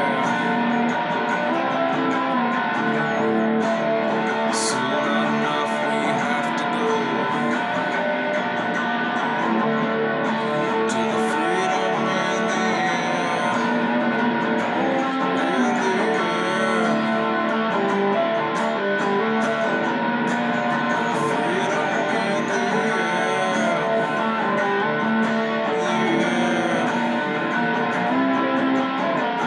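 Electric guitar playing an instrumental passage, held notes and strummed chords with a few bent notes about halfway through.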